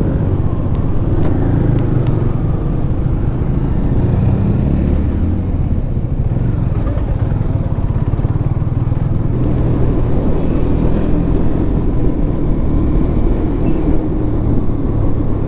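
KTM motorcycle's engine running steadily at low road speed, its note rising and falling a little with the throttle, with wind rumble on the microphone.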